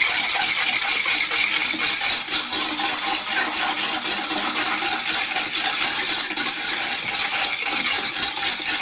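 A spoon stirring water, sugar and lemon juice in a saucepan, a continuous fast scraping and clinking against the pan.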